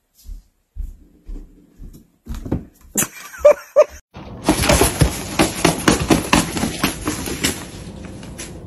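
Soft low thumps, then two short cat cries about three and a half seconds in. After a sudden break, a dense crackling rustle with many small clicks: a hairless Sphynx cat moving about in a suitcase's nylon lining.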